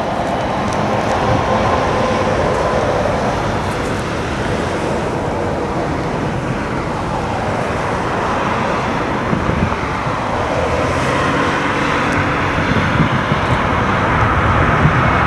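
Jet engines of an Airbus A321neo, two Pratt & Whitney PW1100G geared turbofans, at takeoff thrust during the takeoff roll and liftoff. A steady rushing rumble with a few faint steady tones in it, growing gradually louder.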